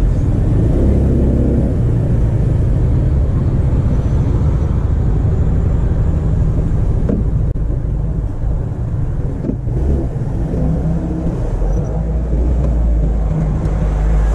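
Motor scooter engine running with a steady low rumble of wind on a helmet camera's microphone as the scooter rides slowly along a lane.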